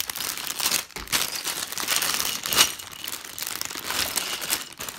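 Clear plastic bags of LEGO pieces crinkling as they are picked up and shuffled by hand, in uneven surges, loudest about halfway through.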